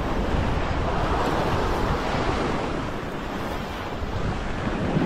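Ocean swell surging and foaming against a rock ledge, a continuous wash that swells about a second in and then eases, with wind rumbling on the microphone.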